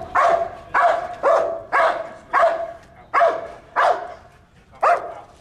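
Police dog barking repeatedly: about eight loud, sharp barks, roughly one every half second to a second, stopping shortly before the end.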